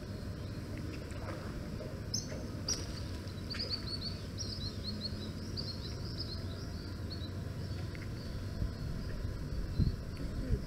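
A bird calls a rapid run of short, high chirps that lasts several seconds and drifts slightly lower in pitch, over a steady low outdoor background rumble.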